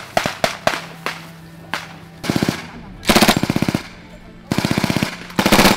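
Gunfire on a live-fire range: a few single shots, then four short bursts of rapid automatic fire from a machine gun.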